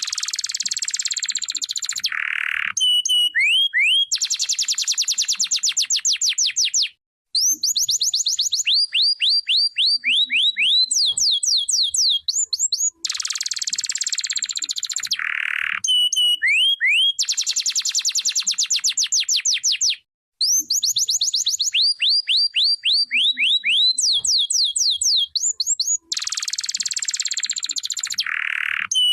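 Canary singing: fast trills of repeated whistled notes, each sweeping down in pitch, alternating with dense buzzy rolls. The same song sequence repeats about every thirteen seconds.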